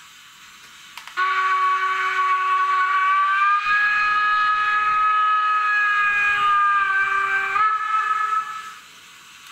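The digital sound decoder of a Roco HO-scale BR 52 steam locomotive model plays one long steam-whistle blast through the model's small speaker. The blast starts about a second in, steps slightly in pitch twice, and fades out near the end. It follows a faint hiss.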